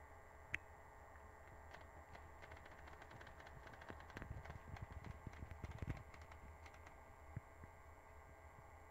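Near silence: a faint steady hum with scattered light clicks, thickest near the middle.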